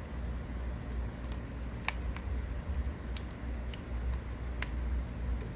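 Light, sharp clicks and taps of small metal and plastic parts and tools on a smartphone being reassembled, as its internal shield is seated. About eight irregular clicks, the loudest about two seconds in and again near the end, over a steady low hum.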